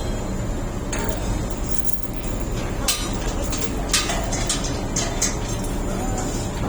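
DH17 bulldozer running with a steady low rumble, with a series of sharp metallic clinks and knocks about once a second.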